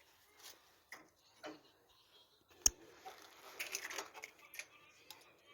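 Light clicks and knocks of a new thermostat housing being handled and fitted onto a small petrol engine, with one sharp knock about two and a half seconds in and a short rattle a second later.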